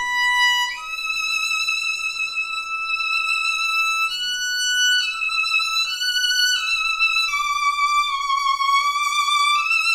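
Violin played with very light bow pressure: a slow, high phrase of long held notes that step up and down, with vibrato on a lower note near the end.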